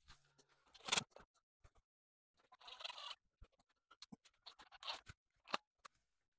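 Faint handling noises of a metal P-clip and sump bolt being fitted to a braided oil line: a sharp click about a second in, a short scrape around three seconds, then several light clicks.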